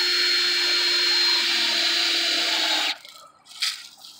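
Ryobi cordless drill driving a screw through a fence board into a wooden post, running steadily with a high motor whine, then stopping abruptly about three seconds in. Light rustling and handling noises follow.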